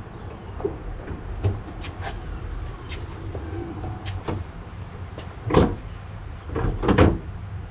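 Ford Focus ST's rear hatch being unlatched and lifted open, with a few light clicks, then two louder knocks near the end. Low wind rumble on the microphone underneath.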